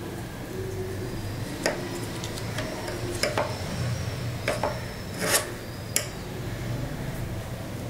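Sharp metal clicks and taps, about seven spread through the middle, the loudest about five seconds in, as small rusty sewing scissors and a knife are handled and set down on a hardboard work surface, over a steady low background hum.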